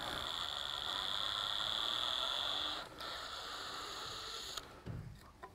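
DeWalt XR cordless drill running slowly, its motor whining steadily as it backs a stripped Phillips screw out of wood, the bit gripping through a rubber band pressed into the stripped head. The whine stops about three seconds in, and a few soft knocks come near the end.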